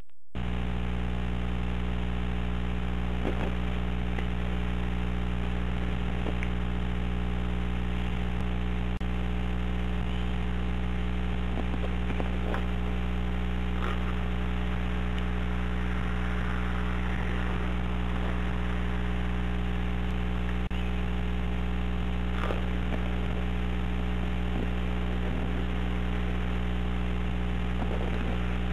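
Steady electrical hum with a stack of overtones, starting abruptly and holding level, with a few faint scattered clicks over it.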